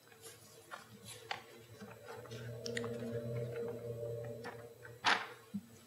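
Paper sheets of sermon notes rustling and crinkling in short, scattered scrapes and clicks as pages are leafed through in search of a lost page. A faint low hum runs through the middle, and a louder rustle comes about five seconds in.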